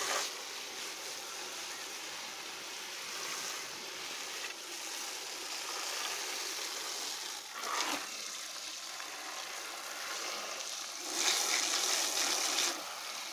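Stream of water spraying against a window air conditioner's finned coil and metal housing: a steady hiss and splatter, louder for a second or two near the end.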